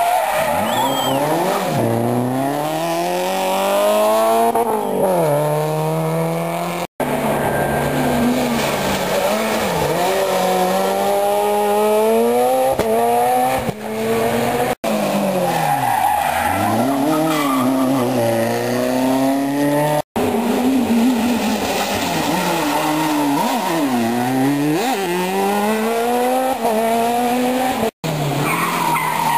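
Rally cars at full attack on tarmac special stages, engines revving hard and dropping back through gear changes and braking for bends, with skidding tyres as they slide through the corners. Several separate passes follow one another with abrupt cuts between them.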